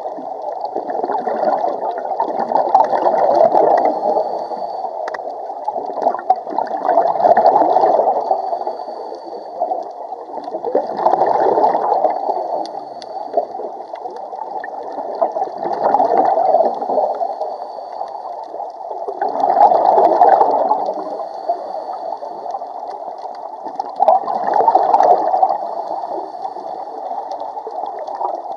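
Scuba diver's breathing underwater: exhaled bubbles from the regulator gurgling in surges about every four to five seconds, over a steady underwater bubbling.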